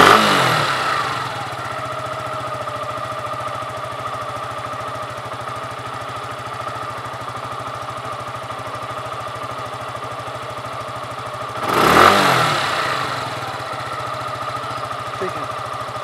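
Suzuki Gixxer SF's single-cylinder engine idling steadily. The throttle is blipped twice, at the start and about twelve seconds in, and each time the revs rise and fall back to idle.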